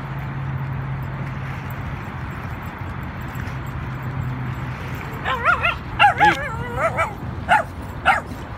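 A dog yipping and whining in a string of short, wavering high cries starting about five seconds in. Underneath is a steady low engine hum.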